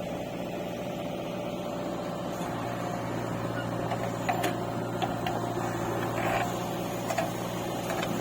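Diesel engine of heavy earth-moving machinery running steadily at a low, even speed, with a few faint clicks and knocks.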